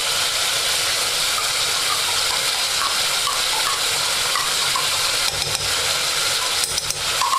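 Chunks of beef and pork sizzling steadily in a pot while tomato paste is scraped in from a can and stirred with a wooden spoon. A few light clicks come near the end.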